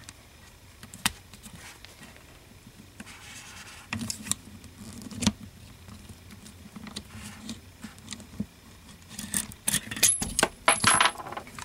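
Small metal clicks and scrapes from a Ballester Molina .45 ACP pistol being field-stripped: the barrel bushing is turned and the recoil spring plug and spring are eased out of the slide under tension. Scattered single clicks, with a quick run of clicks near the end as the spring comes free.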